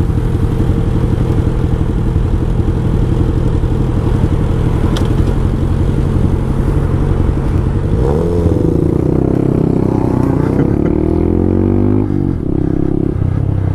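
Motorcycle engines idling at a standstill, the Honda Grom's 125 cc single-cylinder among them, then about eight seconds in the revs climb as the bikes pull away. The revs dip briefly near twelve seconds, as at a gear change.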